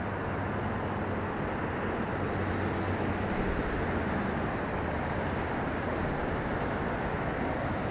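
Steady low rumble of distant road traffic, even in level throughout.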